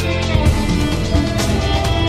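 Background music with a steady beat over a slideshow soundtrack.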